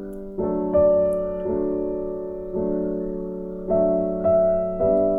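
Background piano music: slow sustained chords that change about once a second, each fading after it is struck.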